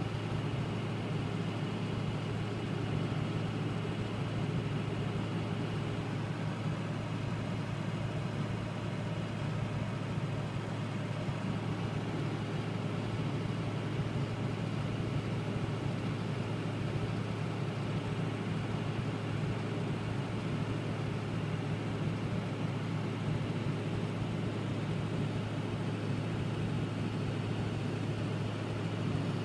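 Car cabin noise at interstate speed: a steady low drone with road and tyre hiss, unchanging throughout.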